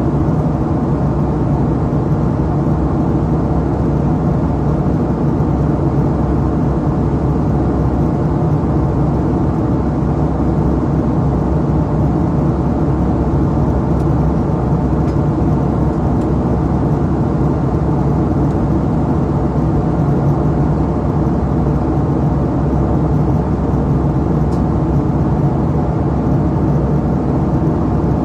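Steady in-flight cabin roar of a Boeing 757-232 airliner: a low, unchanging rush of airflow and engine noise heard from inside the passenger cabin.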